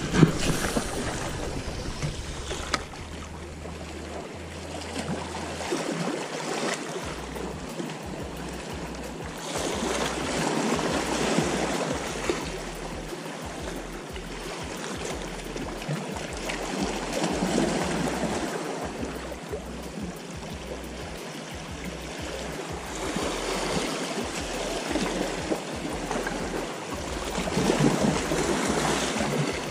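Small sea waves washing against the boulders of a rock breakwater, swelling and ebbing every several seconds, with a sharp knock right at the start.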